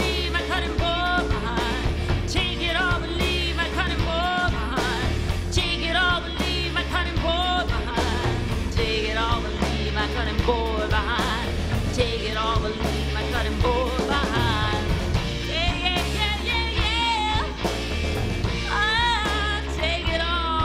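Live band playing a song with a woman singing lead into a close microphone. Her voice carries long, wavering held notes over a steady bass line and drums.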